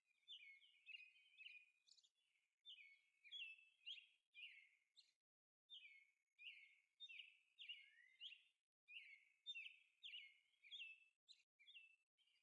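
Birds chirping faintly: a busy, continuous run of short, sliding high chirps with brief pauses.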